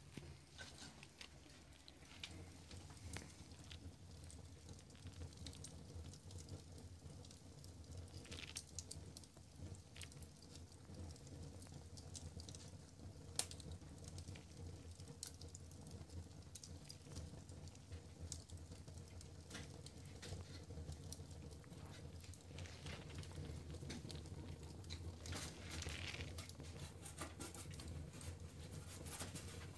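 Wood fire burning in a fireplace, crackling faintly with scattered small pops.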